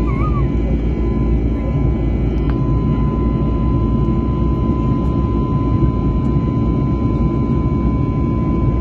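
Jet airliner cabin noise at a window seat: the steady low rush of the turbofan engines and airflow, with a thin, even whine over it.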